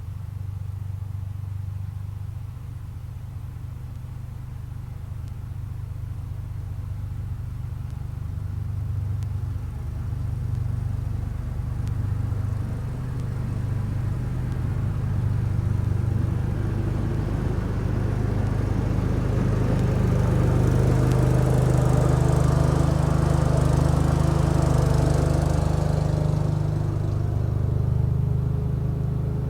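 Engine of a 1975 Case 224 garden tractor running with its snow thrower, a steady low hum that grows louder through the second half. A rushing hiss joins it for several seconds at the loudest part.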